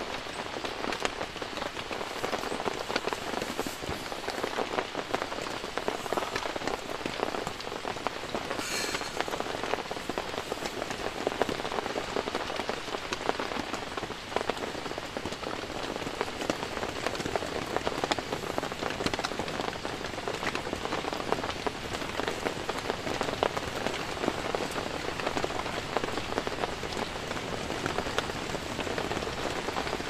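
Heavy rain drumming on a tent, heard from inside: a dense, steady mass of countless drop hits that keeps on without let-up.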